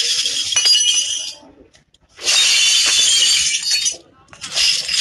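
Bright clinking, jingling noise in three bursts, each about a second and a half to two seconds long, with short gaps between them.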